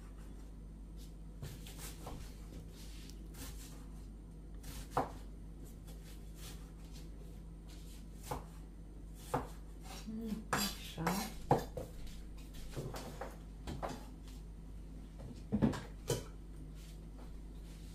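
Kitchen knife knocking on a wooden cutting board as an onion is chopped in scattered strokes, then metallic clinks of the knife against a stainless steel pot as the chopped onion is scraped in. The clinks are busiest about ten to twelve seconds in and again near the end.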